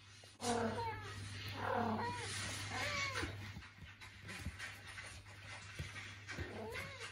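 A cat meowing: about four drawn-out calls, each rising then falling in pitch, three close together and one near the end. A steady low hum runs underneath.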